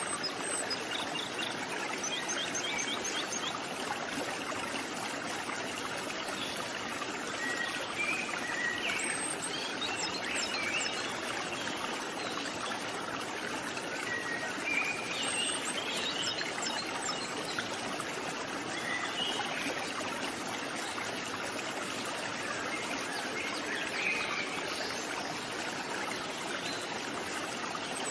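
A steady rushing hiss throughout, with short bird chirps scattered over it.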